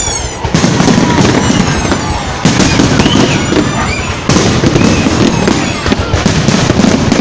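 Fireworks crackling and popping in dense rapid volleys, with fresh bursts starting about half a second in, again around two and a half seconds and again past the four-second mark.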